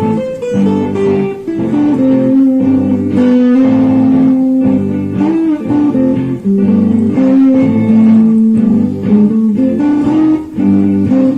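Guitar played through a looper pedal: layered guitar parts, with sustained low notes under a changing melodic line.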